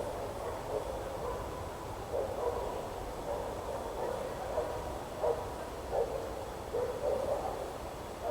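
Forest ambience with a steady low wind rumble, and faint, short distant calls or voices coming every second or so from about two seconds in.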